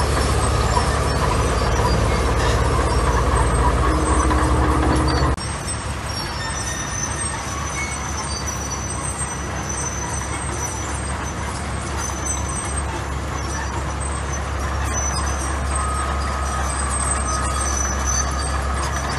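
Heavy diesel earthmoving machinery running: a loud, steady low engine drone that changes abruptly about five seconds in to a slightly quieter engine-and-mechanical noise with a few thin high squeaks.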